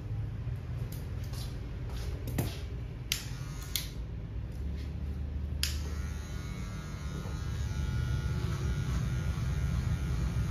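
Electric hair clippers running with a steady low hum, getting a little louder in the later seconds as they work along the side of the head. A few short, sharp snaps or hisses come in the first half.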